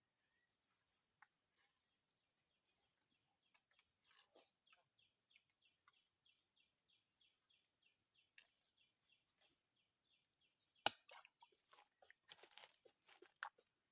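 Faint swamp ambience: a steady high-pitched insect drone, with an animal call, a rapid run of chirps about four a second, through the middle. Near the end come a sharp click and a cluster of smaller clicks and rustles, most likely the angler's gear being handled.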